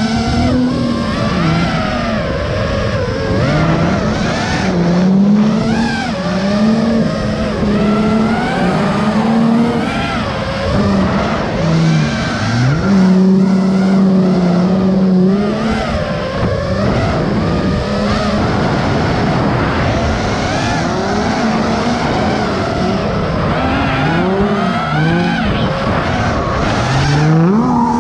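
Drift car's engine revving up and down again and again through the corners, held at high revs for a couple of seconds near the middle, with tyres squealing and skidding.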